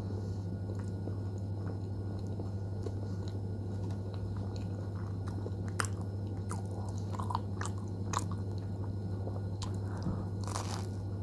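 Close-up mouth sounds of eating a sauce-covered bread pastry: scattered small wet clicks from about halfway through, then a bite into the bread near the end. A steady low hum runs underneath.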